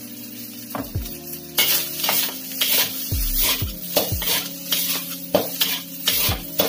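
Metal spatula scraping and clanking against a metal wok as fried rice is tossed and stirred, with frying sizzle underneath. The strokes start about a second and a half in and come about twice a second.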